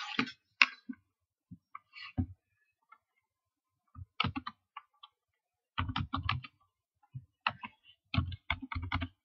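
Computer keyboard keys being typed in quick runs of sharp clicks as a new password is entered. Typing starts about four seconds in and comes in bursts to the end. A few scattered clicks come before it.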